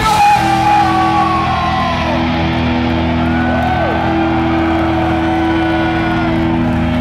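A rock band's last chord ringing out on amplified electric guitars as a steady held drone after the full band stops, with audience shouts and whoops over it.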